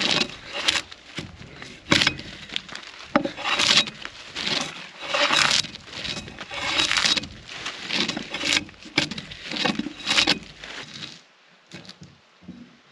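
Drawknife peeling tough bark off a large log: about eight scraping strokes, some ending in a sharp crack as bark strips tear away. The strokes stop near the end.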